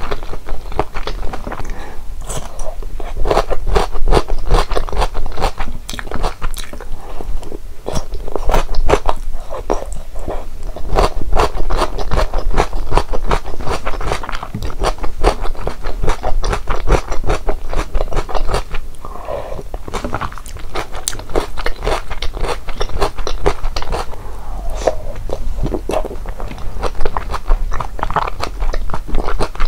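Close-miked eating sounds: a person chewing and biting into malatang with its noodles, dried tofu and shrimp balls, making a dense, continuous run of mouth clicks and soft crunches.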